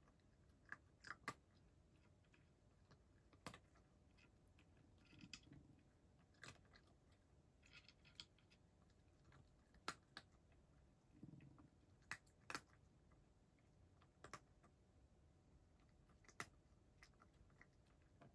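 A cat eating from a dish, chewing its food: about a dozen sharp, separate crunches at uneven intervals, with a couple of softer stretches of chewing in between.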